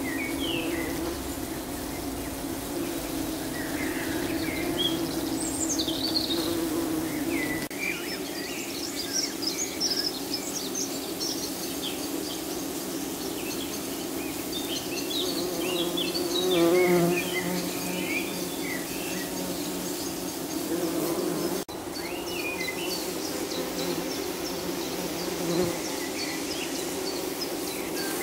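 Steady buzzing hum of many buff-tailed bumblebees (Bombus terrestris) at their nest, briefly louder about two-thirds of the way through. Songbirds chirp in short rising and falling notes in the background.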